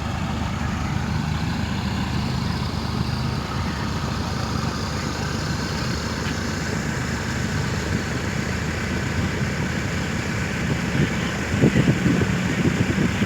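Off-road vehicle engine idling steadily, with an irregular burst of louder noise near the end.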